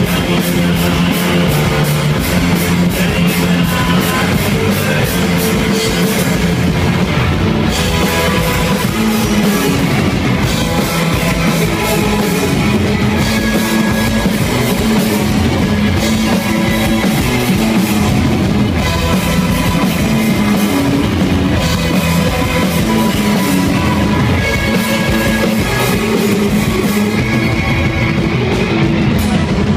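Live rock band playing loudly and without a break: electric guitars over a driving drum kit.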